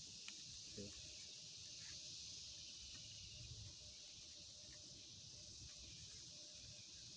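Near silence: faint outdoor ambience, a steady high hiss with a soft low rumble underneath and a few faint clicks.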